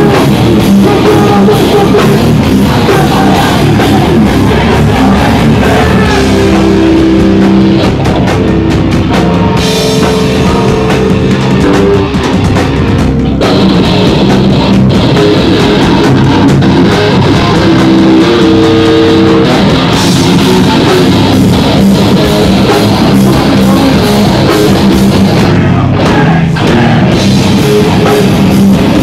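Hardcore band playing live at full volume: heavily distorted electric guitars and bass over a pounding drum kit, with held low chords and no clear vocals, recorded loud and close from the stage.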